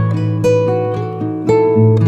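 Background music: acoustic guitar picking notes that ring out over a held bass note.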